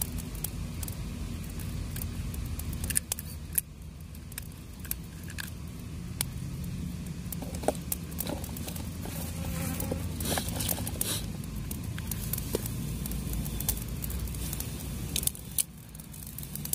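Cooking over an open fire: scattered crackles and small metal clicks and clinks of a pot and utensils being handled, over a steady low rumble. A few louder knocks come through, and a brief burst of rattling scraping about ten seconds in.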